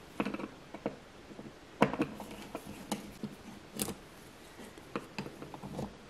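Flathead screwdriver turning out the screws of a plastic light-switch wall plate. Small, irregular clicks and scrapes of the blade on the screw heads, with the plastic plate knocking as it is handled.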